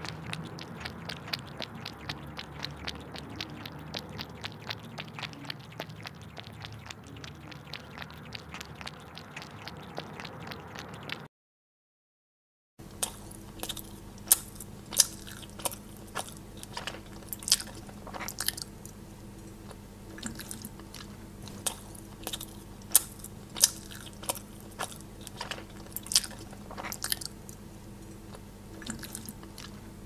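Crunchy chewing and biting of food, in two separate sound-effect clips. The first is a fast, dense run of fine crackly clicks. After a short silent gap about eleven seconds in, the second follows with louder, sharper crunches at irregular intervals over a low steady hum.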